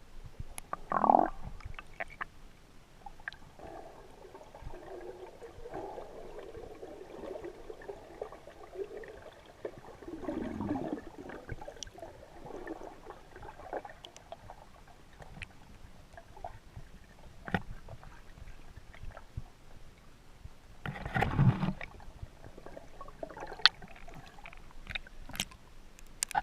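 Muffled underwater water sounds picked up by a diving camera: low gurgling and sloshing with scattered small clicks, swelling louder about a second in, around ten seconds in and around twenty-one seconds in.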